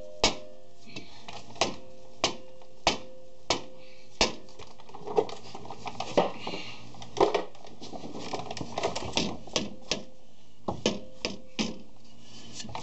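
Repeated heavy mallet blows on the rusted cast-metal rear brake drum of a 1997 Chevy Astro van, struck to break the rust holding the seized drum to the hub. Sharp knocks come about one to two a second, with a brief ring from the drum after several, and a run of lighter, quicker knocks in the middle.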